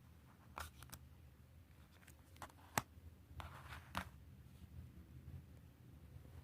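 A few faint, sharp clicks and taps of small hard parts being handled, a single louder click a little under three seconds in and a short cluster about a second later, over a low steady hum.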